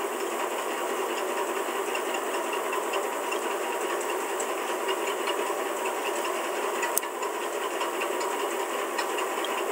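Steady whirring noise with faint scattered ticks, and a single sharp click about seven seconds in.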